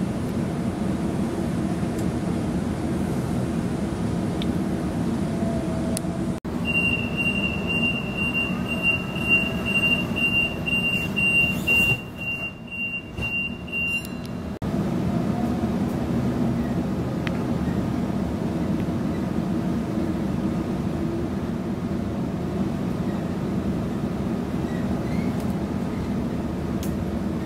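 Electric suburban passenger train running, a steady rumble heard from inside the carriage. For about eight seconds in the middle, a steady high-pitched tone sounds over a quieter rumble, then the full rumble returns.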